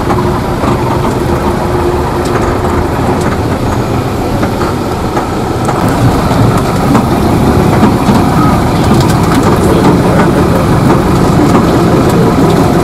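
Steady engine and road noise of a city bus, heard from inside its cabin, a little louder from about six seconds in.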